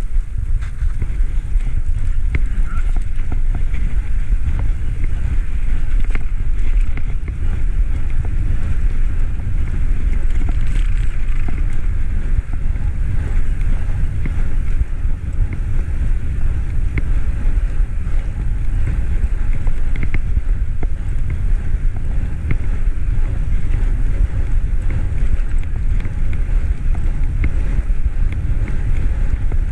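Wind rushing over the microphone of a bicycle-mounted camera while riding, a steady low rumble mixed with tyre noise on pavement, with a few faint ticks scattered through it.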